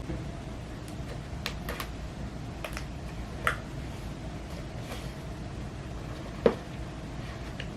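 Handling noises of a phone box being opened: scattered small clicks and rustles of cardboard and paper, with a sharper tap about six and a half seconds in, over a steady low room hum.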